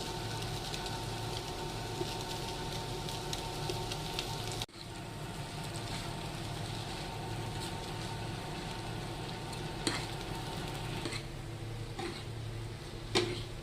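Boiled Maggi noodles stir-frying in a pan with chicken, egg and masala: a steady sizzle with a spatula stirring. It drops out for an instant about five seconds in, and there are a few sharp taps of the spatula against the pan later on.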